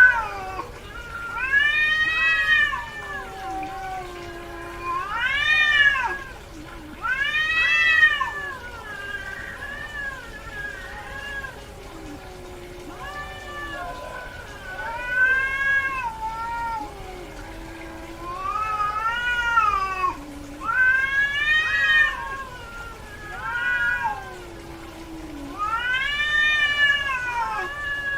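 Domestic cat in heat calling: a string of about a dozen drawn-out meows, each rising then falling in pitch, one to three seconds apart.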